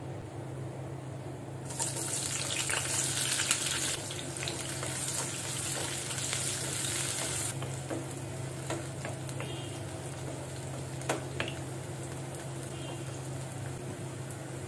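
Sliced onions hitting hot oil in a nonstick wok, sizzling loudly all at once about two seconds in. The hiss eases after about six seconds into a steady fry, with a wooden spatula scraping and tapping the pan as the onions are stirred.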